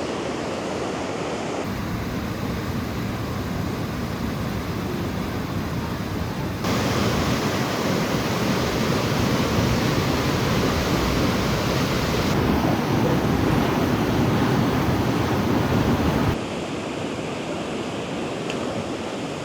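Waterfall rushing steadily, a loud even roar of falling water. It grows louder abruptly about a third of the way in and drops back just as suddenly near the end.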